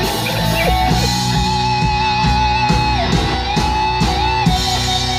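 Live band playing an instrumental passage: an electric guitar lead holds long notes with pitch bends over the band's steady backing, played loud through a PA system.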